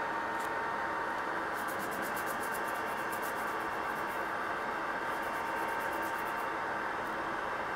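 Steady workshop hiss with a faint constant hum, and twice a light, rapid rustling as a paper template is rubbed and pressed flat onto a wooden block.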